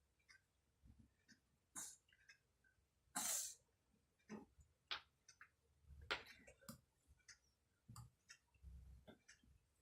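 Faint, scattered clicks and light knocks of wooden toy blocks being handled and set down, with a short hissy burst about three seconds in.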